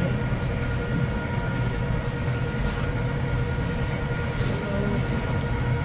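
Steady low mechanical rumble with a few faint constant tones above it, unchanging throughout.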